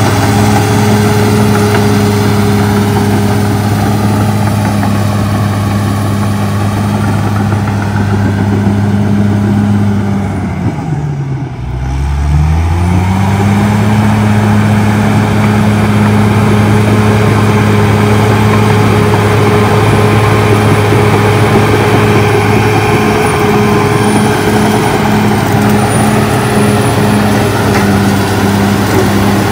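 Caterpillar D6R XL crawler bulldozer's diesel engine running loud and steady while the dozer pushes brush and soil with its blade. Around the middle the engine note briefly drops in pitch and level, then climbs back.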